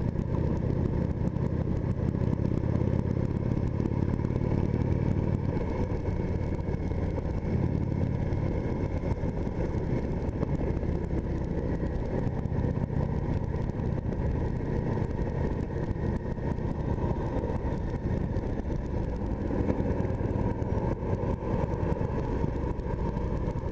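2015 Indian Chief Vintage's Thunder Stroke 111 V-twin running at a steady cruise, with wind and road noise over it.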